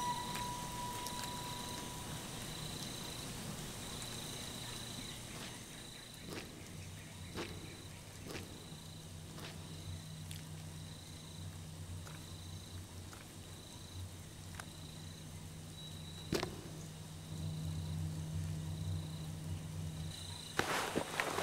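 A cricket chirping at an even pace, about one chirp every second and a bit, over a low steady hum, with a few scattered sharp clicks. Near the end louder crackling rustles begin.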